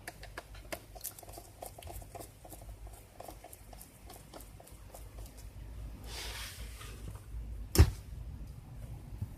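Small clicks and taps of a screwdriver and plastic laptop parts being handled during disassembly, a brief scrape about six seconds in, then one sharp snap near the end, the loudest sound.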